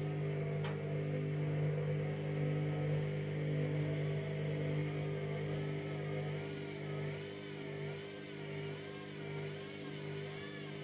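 Candy washing machine's drum motor running under an unbalanced half load of bedding, held back from full spin speed. A steady hum runs throughout; from about midway a whine wavers up and down about once a second.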